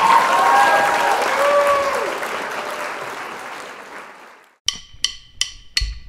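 Intro sound effect: a crowd cheering and applauding, fading away over about four seconds, then four quick wooden clicks in an even count, like drumsticks struck together.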